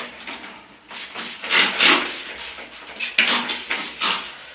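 Hand trigger spray bottle misting water onto a rolled-out sheet of dough, several short hissing squirts.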